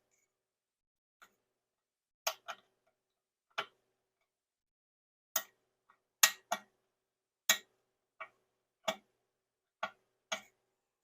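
Short, irregular metal-on-metal scrapes and clicks of a hand tool picking rust and crud out of the head of a stubborn, rusted screw, about a dozen strokes with pauses between.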